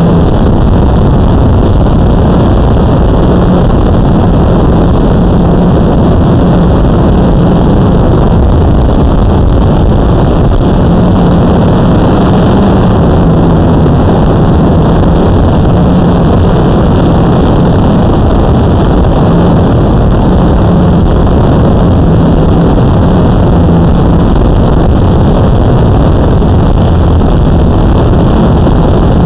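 Blade 350 QX quadcopter's four brushless motors and propellers, heard from the drone's own onboard camera while it hovers: a loud, unbroken drone with a hum that wavers slightly in pitch.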